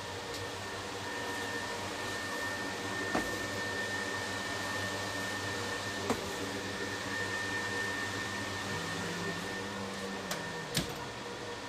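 Industrial microwave dryer running during a drying cycle: a steady electrical hum with fan noise and a few fixed tones, and a few faint clicks.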